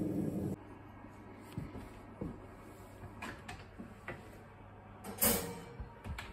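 A steady rushing noise cuts off about half a second in. Then a domestic wall oven's door and racks are handled: a series of light knocks and clinks, the loudest and sharpest about five seconds in.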